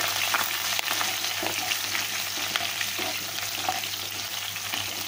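Hot oil sizzling in a non-stick kadhai as chopped green chillies and curry leaves fry in a tempering of mustard seeds and cumin, with scattered small pops. A wooden spatula stirs and scrapes across the pan.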